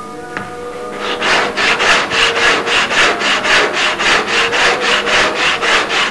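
Quick, even back-and-forth strokes of a hand tool rubbing on wood, about four to five strokes a second, starting about a second in.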